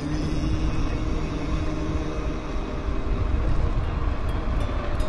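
Wind rumbling on the microphone of a bicycle riding along at speed, under the held last note of a sung song that fades out over the first two or three seconds. A few faint high clicks near the end.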